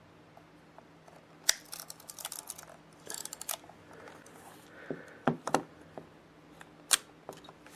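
Yashica Electro 35 GSN rangefinder camera with its bottom cover off being handled and turned over: scattered sharp clicks and short bursts of rattling clatter from its metal body and parts.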